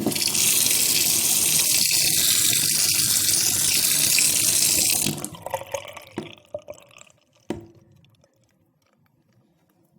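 Water running in a steady stream into a drain for about five seconds, then stopping. A few drops follow, falling into the drain, the last clear one about two and a half seconds after the flow ends.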